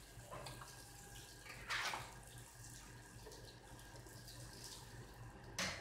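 Hot oil sizzling in a large wok as samosas deep-fry: a steady hiss, with two brief louder bursts about two seconds in and near the end.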